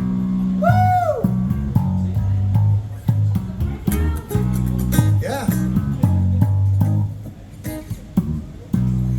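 Band playing an instrumental groove: a repeating bass guitar line with electric guitar over it, and a high note that bends up and falls away about a second in. The groove drops back for a moment near the end, then returns.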